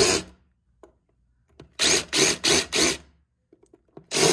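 Cordless drill run in short trigger bursts, its bit grinding into a fiberglass boat transom to score the gelcoat around freshly drilled holes. There are four quick grinding bursts about two seconds in, a few small clicks, and more bursts starting near the end.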